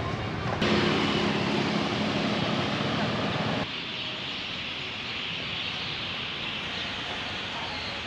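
Steady vehicle noise with a faint low hum, changing abruptly about half a second in and again about three and a half seconds in, when it gets quieter.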